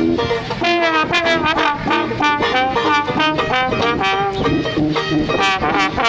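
Trombone, banjo and tuba playing a tune together, the brass notes over banjo strumming and tuba bass.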